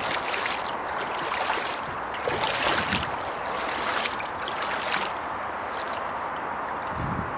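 Garden grass, twigs and fallen leaves rustling and crackling in irregular bursts as they brush past, dying away after about five seconds, over a steady hiss.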